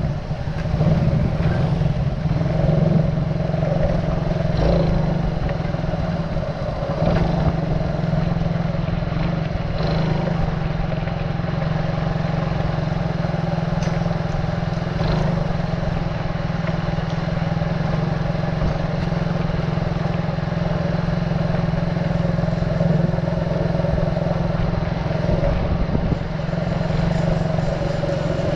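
Small motorcycle's engine running steadily as it is ridden along a road, with a few short knocks along the way.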